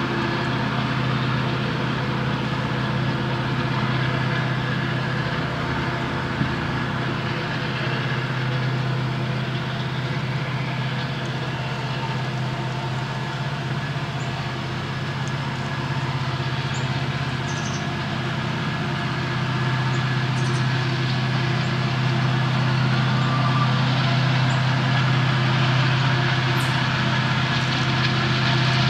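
An EMD SD70ACe diesel locomotive screaming as it works hard up a grade, a steady deep engine drone. It grows louder from about two-thirds of the way through as the train approaches.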